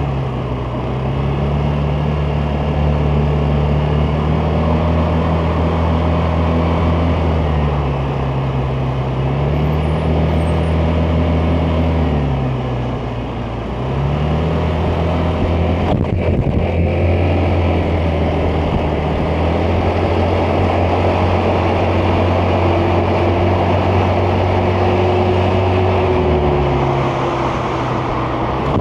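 Vespa GTS 300 scooter's single-cylinder four-stroke engine under way, its pitch rising and falling several times as the throttle opens and closes. There is a brief dip as it eases off a little before halfway, and a short thump soon after.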